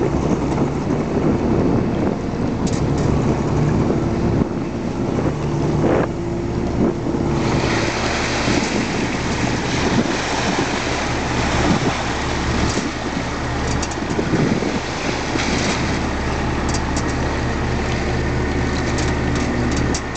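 Fishing boat's engine running steadily, a low hum. From about seven seconds in, a loud rush of water splashes and pours as the snow crab trap is hauled up out of the sea.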